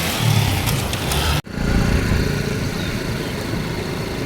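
Motorcycle engine running while riding, cut off abruptly for an instant about a second and a half in before the running sound resumes.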